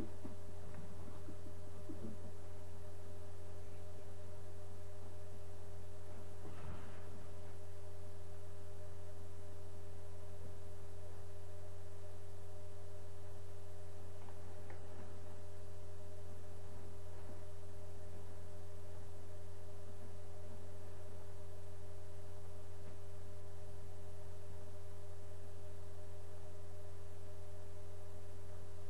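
Steady electrical hum: a low drone with a couple of higher steady tones above it, unchanging throughout. Faint brief soft sounds about seven and fifteen seconds in.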